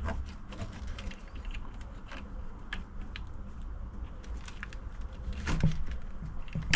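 Small, irregular clicks and taps of metal parts being handled while a worm-drive jubilee clip is fitted on the fuel pump's hose, with a slightly louder cluster of clicks about five and a half seconds in.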